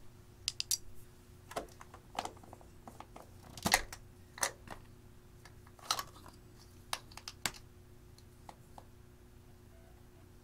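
Small plastic makeup containers handled in the fingers: a run of sharp, irregular clicks and taps, the loudest about four seconds in, thinning to a few faint ticks near the end.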